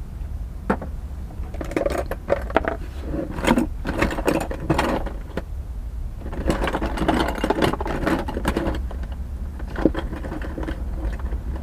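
Small hard parts rattling and clicking irregularly as they are rummaged through by hand, over a steady low hum.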